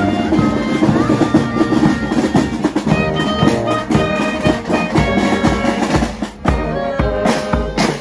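Marching band of flutes, clarinets, saxophones, brass and drums playing a march as it passes. In the second half the bass drum beats come through strongly and evenly.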